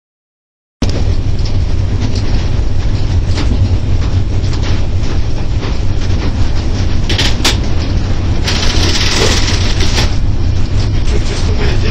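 Cab noise of an EP07 electric locomotive running along the line: a steady, loud low rumble of the running gear with wheel-on-rail clatter, starting about a second in. A couple of sharp clicks come around seven seconds in, and a hissing burst runs from about eight and a half to ten seconds.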